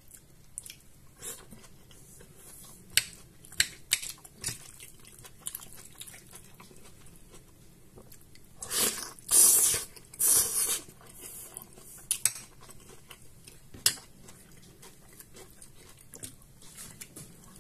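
Close-up eating sounds: a metal spoon clinking and scraping on a plate of fried cabbage with egg, with chewing between the clinks. A louder stretch of noise comes about halfway through.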